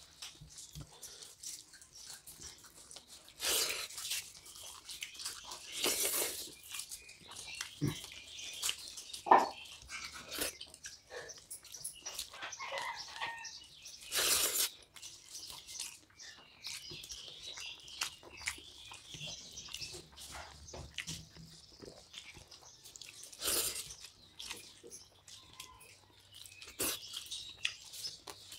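Close-up eating sounds of fish head curry with rice eaten by hand: wet chewing and mouth clicks, with a few louder short wet bursts every few seconds.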